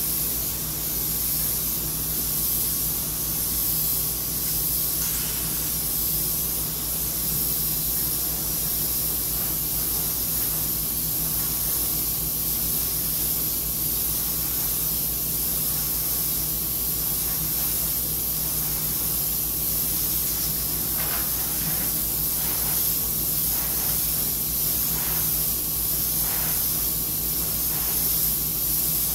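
Iwata HP-CS airbrush hissing steadily as it sprays light layers of paint against a stencil edge.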